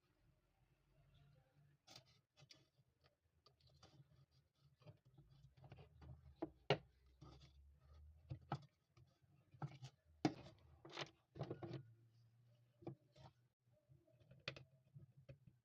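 Faint, scattered clicks and light knocks of small parts and tools being handled, a few sharper taps among them, over a faint low hum.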